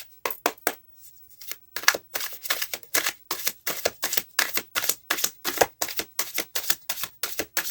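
A deck of tarot cards being shuffled by hand, the cards slapping together in a quick run of crisp clicks, about four a second after a brief pause near the start.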